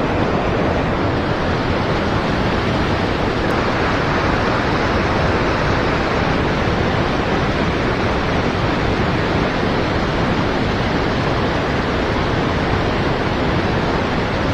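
Steady, loud rush of flowing river water, an even noise with no breaks.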